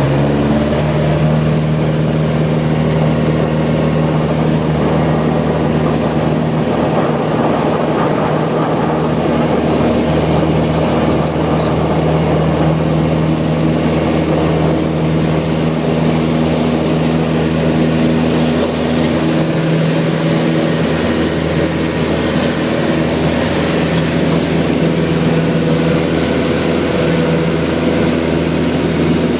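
Beechcraft light aircraft's piston engine and propeller running steadily, heard from inside the cabin.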